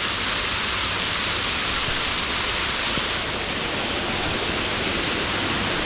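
Waterfall close by: the steady rush of falling water, a loud even hiss that eases slightly about halfway through.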